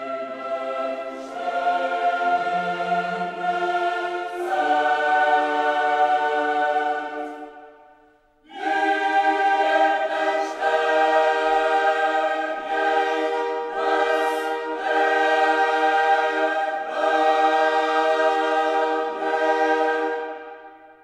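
Background choral music: a choir singing held chords, which fade out about eight seconds in, start again, and fade out at the end.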